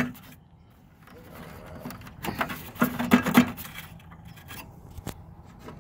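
Plastic clicking, knocking and rubbing as the headlight assembly's retaining tabs on a 2004 Ford E450 are worked loose by hand. There is a cluster of knocks about two to three and a half seconds in and a single sharp click near the end.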